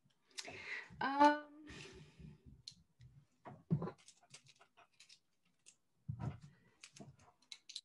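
A short pitched whine about a second in, followed by scattered soft rustles, clicks and a couple of dull thumps, the sounds of someone moving and handling things at a desk.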